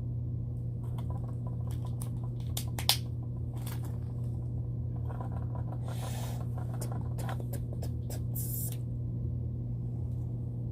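Plastic toy packaging being handled and opened: crinkling of wrappers in short bursts and small plastic clicks and taps, one sharper click about three seconds in, over a steady low hum.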